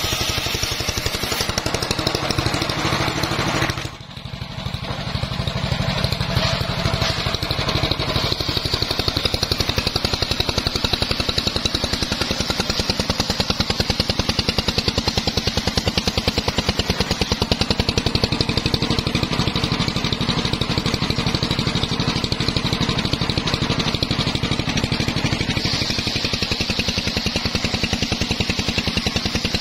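Engine-driven circular saw bench running steadily, its large blade ripping mahogany logs and slabs into boards, with a fast, even engine pulse throughout. The level dips briefly about four seconds in.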